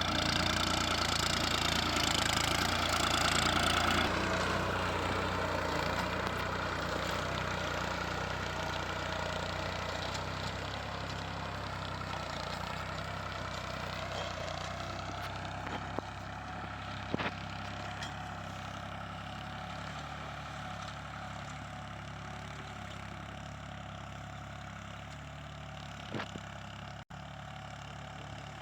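Farm tractor engine running steadily while ploughing, growing gradually fainter as it pulls away.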